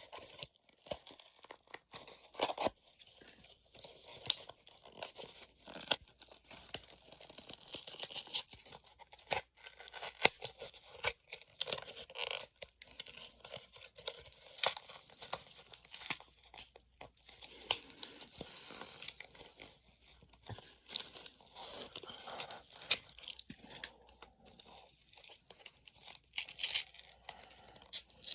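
Toy packaging being torn open and handled: irregular tearing and crinkling with many scattered sharp clicks.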